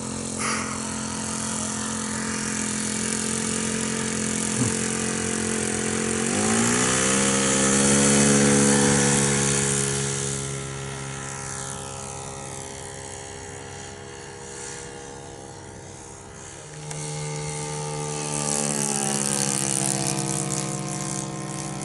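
Radio-controlled model aircraft engine running with a steady, buzzing note. It is throttled up about six seconds in, eases off after about ten seconds, and picks up again near seventeen seconds.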